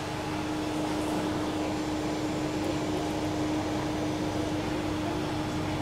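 Cabin noise of an electric commuter train in motion: a steady rumble with a steady low hum.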